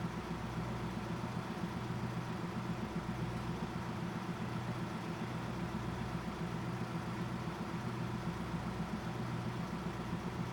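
Diesel railcar engine idling steadily, a low, even hum with a slight regular pulse.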